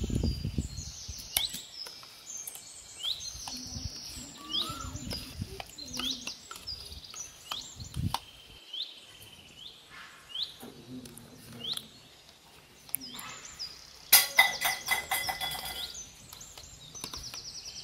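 Small birds chirping over and over, with a steel spoon clicking and scraping against a plastic curd tub and a steel bowl as set curd is scooped out. A short run of rapid scraping clicks near the end is the loudest sound.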